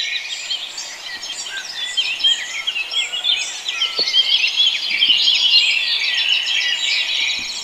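Dense chorus of many songbirds chirping and singing together.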